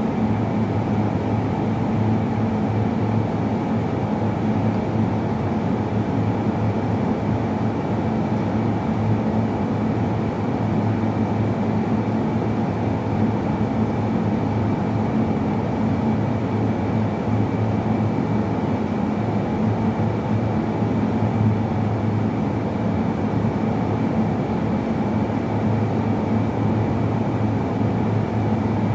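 Steady machine hum: a low drone with a thin high whine over it, unchanging in level.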